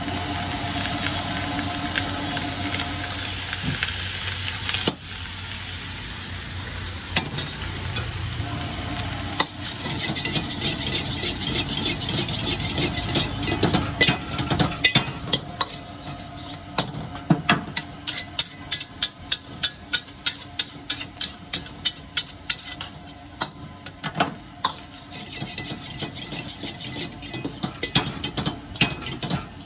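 Rice and noodles sizzling in a wok over a gas flame, stirred and scraped with a metal ladle. From about halfway, a quick run of sharp metallic clanks as the ladle strikes the wok while tossing the food.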